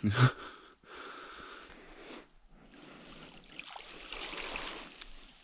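A sharp knock at the start, then rustling and water sloshing as a net yabby trap is hauled through shallow dam water on its rope.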